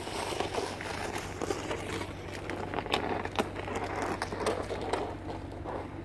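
Snow shovel being pushed through snow across a driveway, with irregular scraping and crunching.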